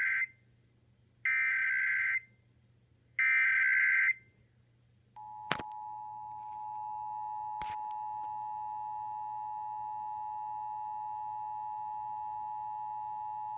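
Emergency Alert System SAME header: the tail of one screeching digital data burst, then two more bursts of about a second each. About five seconds in, the EAS two-tone attention signal (853 and 960 Hz) starts and holds steady, with two brief clicks in it.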